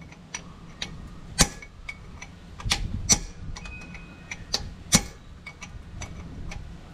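Irregular sharp metal clicks and taps from tools working a screw extractor in a snapped cylinder head bolt on a Renault F4R engine. The bolt rocks side to side but will not turn. Two louder strikes come about a second and a half in and at five seconds, with a short metallic ring just before four seconds.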